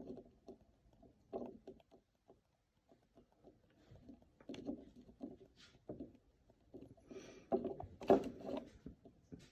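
Irregular small clicks and knocks of the buttons on a Screaming Meanie 220 alarm clock being pressed and handled while the hour is set.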